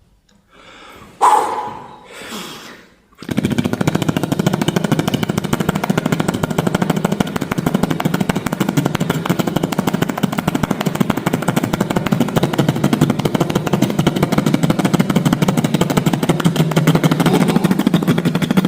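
Beatboxed helicopter imitation: a very fast, even mouth flutter like spinning rotor blades, kept up for about fifteen seconds. It starts about three seconds in, after a quiet start with a couple of soft swells.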